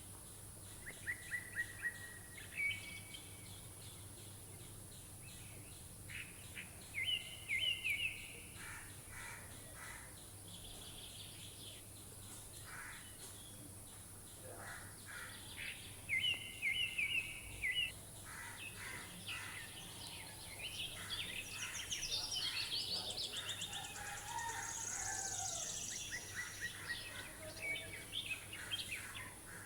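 Wild birds calling: short runs of rapid chirping notes repeat every few seconds, and the calling grows busier and higher for several seconds past the middle, over a faint steady background hiss.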